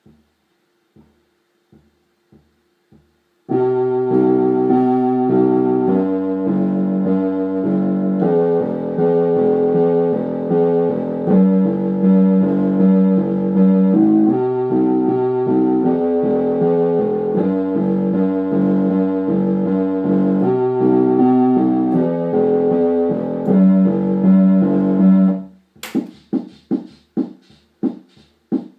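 Orla Carousel electronic keyboard playing held chords in a steady organ-like voice over a bass line, the chord changing about every two seconds. A few faint ticks come before it starts, about three and a half seconds in, and from about twenty-six seconds it switches to short plucked notes.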